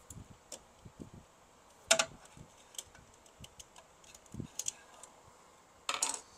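Irregular light clicks and taps of a flat screwdriver prying at the plastic clips of the separation roller assembly inside an HP LaserJet Pro 200 laser printer. Two sharper clicks stand out, about two seconds in and near the end.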